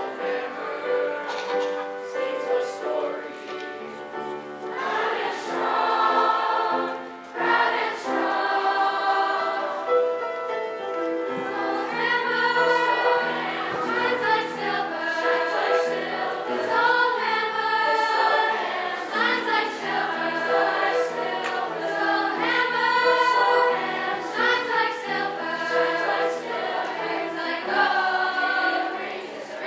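Junior high mixed chorus singing in parts, with piano accompaniment.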